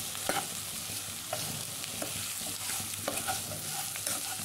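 Okra and onions with masala sizzling as they fry in a pan, stirred with a spatula that knocks and scrapes against the pan about once a second over a steady frying hiss.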